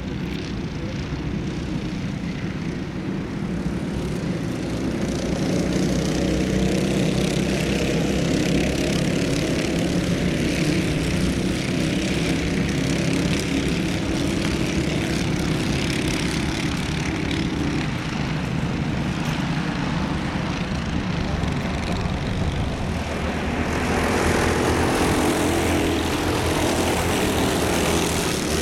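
Several racing karts' engines running together on a circuit, a dense buzzing drone. The pitch wavers as the karts accelerate and lift through corners. About 24 seconds in it gets louder as karts come close past.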